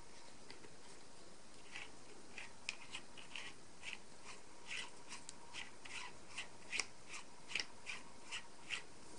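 Plastic threads of a small desktop tripod mic stand squeaking and clicking in short bursts, about two a second, as the microphone clip is screwed onto the top of the stand; the bursts begin about two seconds in.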